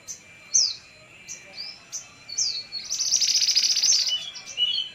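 A female mantenan songbird singing: a run of short, high, down-sweeping chirps, with a fast, dense trill lasting about a second near the middle.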